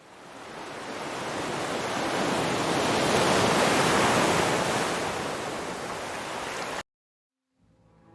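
A rush of whooshing noise, like wind or surf, that swells over the first three seconds or so, eases a little, then cuts off abruptly about seven seconds in. Soft sustained music tones begin just before the end.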